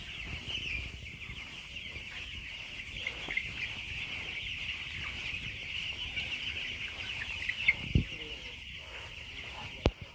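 A large flock of chickens calling continuously, a dense high-pitched chorus of many overlapping cheeps and clucks. A dull thump comes about eight seconds in and a sharp click just before the end.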